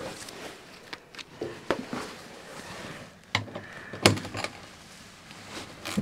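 Scattered sharp metal clicks and knocks, about half a dozen, as a socket is fitted onto and worked on a bolt of a small access cover in a steel cab floor plate.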